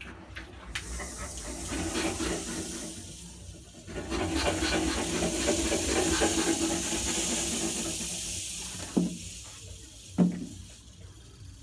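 Porcupine rattling its quills in alarm: a dry, hissing rattle that swells twice, the second time longer and louder. Two sharp knocks come near the end.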